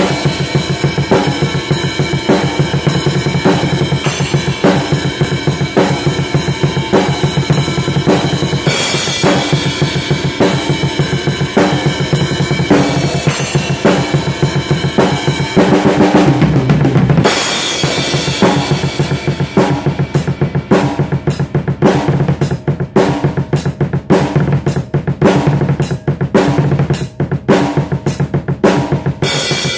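Acoustic drum kit played solo with sticks: kick drum, snare and cymbals in a busy, driving pattern. About halfway through a low drum rings out briefly, and in the last third the cymbal wash thins so that single strokes stand out.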